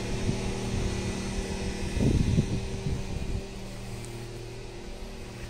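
Steady low mechanical hum with a low rumble, picked up by phone microphones during a handheld walking video test; the rumble eases about three and a half seconds in while the hum carries on.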